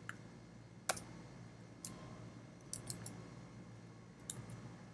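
Faint, scattered keystrokes on a computer keyboard while typing a word: single sharp clicks spaced irregularly, some in quick pairs.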